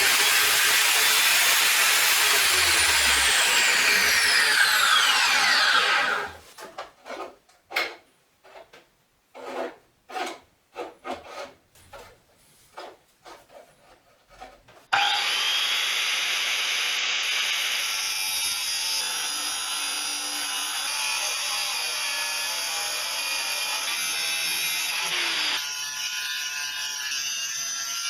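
A 230 mm (9-inch) angle grinder cutting metal in two long stretches, with a run of short separate bursts of sound between them.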